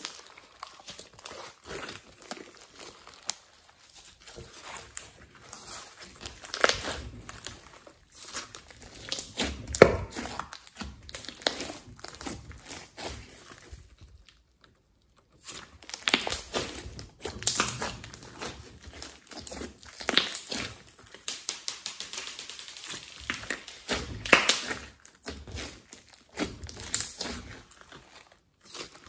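Slime squeezed, folded and pressed by hand, giving a dense run of small clicks and pops, with a short pause near the middle.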